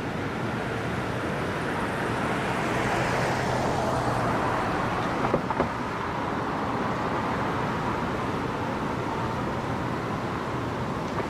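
A vehicle passing, its tyre noise swelling and then easing, with two sharp knocks close together about halfway through.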